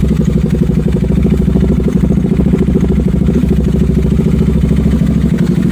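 Bajaj Pulsar RS200's single-cylinder engine idling steadily through an aftermarket slip-on exhaust canister, a fast even pulsing exhaust note.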